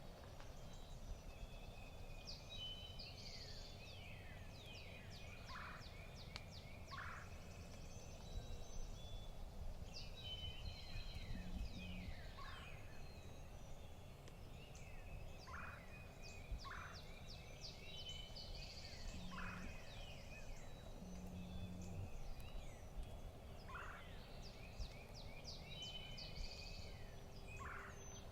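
Wild turkey gobbler gobbling, faint and distant, in several bouts a few seconds apart.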